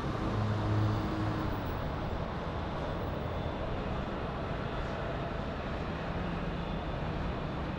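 Jet airliner engines heard as a steady rush of noise with a low hum, easing off slightly over the first couple of seconds and then holding steady.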